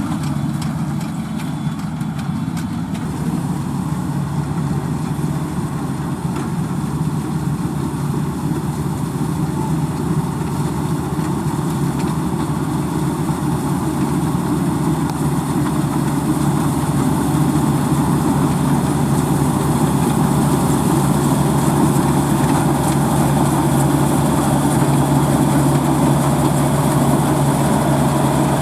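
Heavy diesel farm machinery running steadily, a low engine drone that grows gradually louder.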